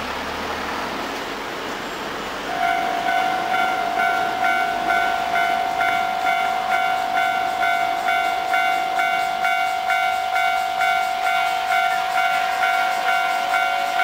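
Receding electric train for the first couple of seconds, then a Japanese level-crossing warning bell starts up about two and a half seconds in: an electronic ding repeating in a fast, even rhythm, the crossing's signal that a train is coming.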